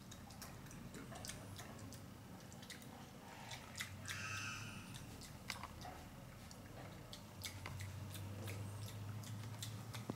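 A white-nosed coati foraging on a tiled patio: scattered light clicks and ticks of its claws on the tile and of it nibbling food. A brief high squeak sounds about four seconds in.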